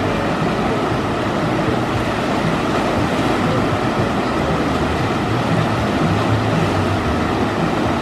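Water gushing steadily out of the waterslide flumes and splashing into the splash pool, a constant rushing noise.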